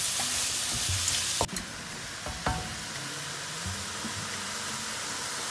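Sliced mushrooms sizzling in butter and olive oil in a frying pan as they give up their juice, with a couple of sharp taps of a spatula against the pan. The sizzle drops in level about one and a half seconds in and carries on more quietly.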